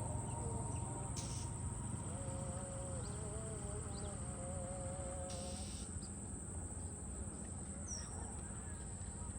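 Steady high-pitched drone of insects, over a low background rumble. A faint wavering tone comes and goes in the middle.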